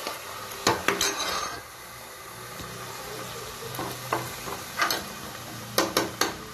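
Large steel ladle stirring and scraping lima beans and onions frying in a metal pressure cooker, over a light sizzle. There are sharp clinks of ladle on pot about a second in and several more near the end.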